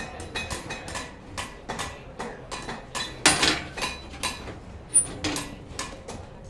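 Steel plate and angle iron clanking and knocking against each other and the wooden forge frame as they are handled and fitted, a quick, irregular run of sharp knocks several a second. A louder clatter about three seconds in and a sharp knock about five seconds in.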